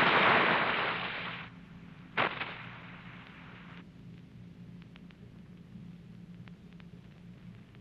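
Audience applause on an old radio-broadcast recording, fading out about a second and a half in, followed by a single sharp click. Then a low hum with faint crackle ticks from the aged recording.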